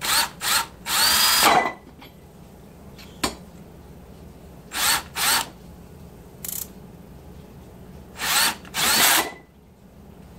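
Cordless drill/driver running bolts into the ends of the blower's rotor shafts to pull the rotors up tight to the bearings. It runs in short bursts, three near the start, two around the middle and two near the end, its whine rising and falling as the motor speeds up and slows. There is a single sharp click about three seconds in.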